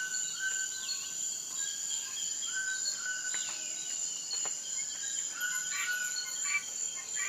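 Countryside ambience: a continuous high-pitched insect drone with birds calling over it, short held whistled notes and several falling calls.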